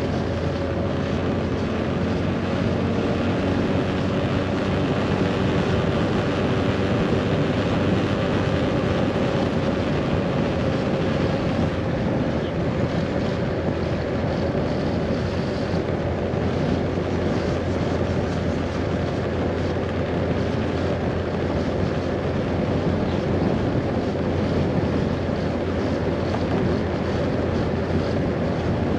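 Scooter engine running steadily while riding, mixed with steady wind rush on the microphone and road noise.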